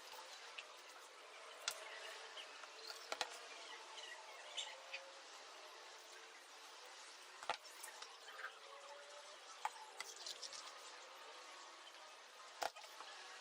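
Faint steady background hiss with a few faint short chirps, broken by about half a dozen light knocks and clicks at irregular moments, the sharpest near the middle and near the end.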